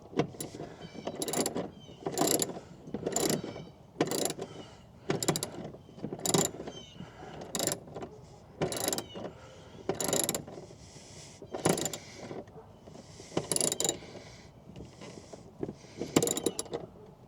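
Hand ratchet with an extension driving a bracket screw into a TV mount, each back-and-forth stroke giving a short burst of pawl clicks, repeated roughly once a second.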